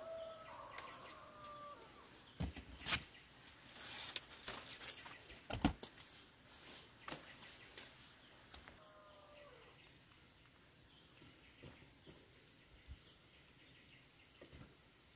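Quiet rural outdoor ambience: a bird calls at the start and again about nine seconds in, over a faint steady high whine, with a few sharp knocks and rustles between about two and seven seconds in.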